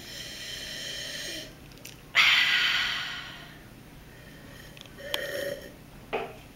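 A woman sniffing at a glass of red wine with her nose in the glass: a longer sniff, then a much louder sudden one about two seconds in that fades over a second or so, and a few short breath sounds near the end.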